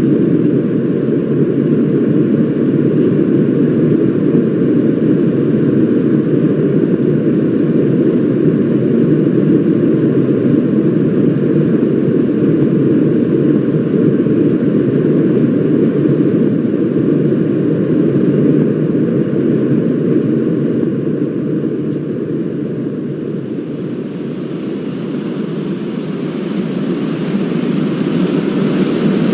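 Steady low rumble of engines and rushing air heard inside an airliner cabin, easing off slightly late on and then building back up.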